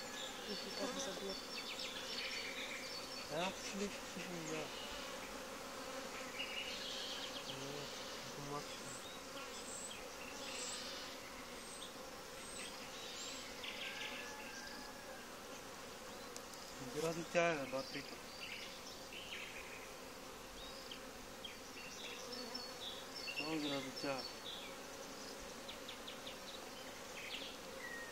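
Honeybee colony humming steadily from an open hive, with single bees buzzing close past a few times, their pitch sweeping up and down, loudest a little past halfway. The beekeeper calls the colony nervous.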